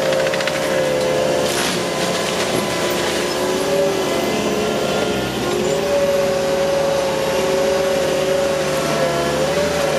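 Forestry mulcher running with a steady high whine over engine noise, its pitch dipping briefly about five seconds in. A brief crackle of wood being chewed comes in the first two seconds.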